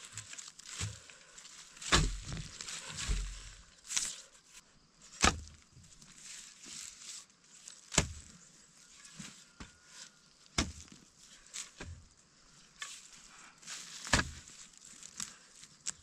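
A knife chopping food on a wooden board: roughly ten sharp, irregularly spaced chops, about one every one to two seconds.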